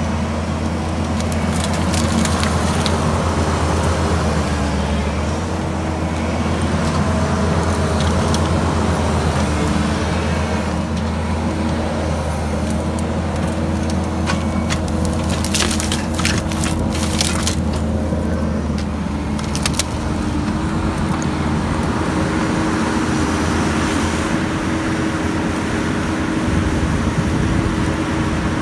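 Kubota SVL75 compact track loader's diesel engine running steadily under working load, its pitch shifting a few times. Wood and brush crack and snap in a cluster about halfway through as the grapple rake handles logs.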